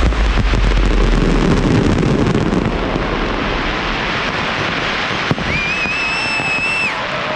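Fireworks display at its finale: dense crackling over a deep rumble that fades away over the first couple of seconds. About five seconds in comes a sharp crack, then a shrill, steady whistle held for about a second and a half.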